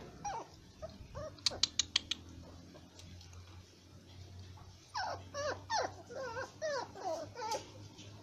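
Puppies whimpering and whining in short, high calls that bend and fall in pitch: a few soft ones near the start, then a quick string of them from about five seconds in until near the end. About one and a half seconds in, a rapid run of five sharp clicks.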